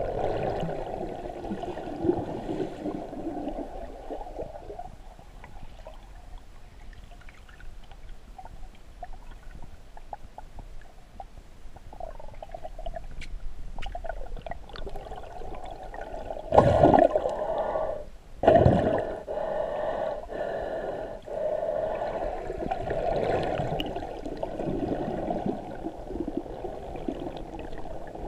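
Muffled, gurgling water noise picked up by a camera submerged in a lake, heard through its waterproof housing. Twice, about two-thirds of the way through, the water noise surges loudly for a moment.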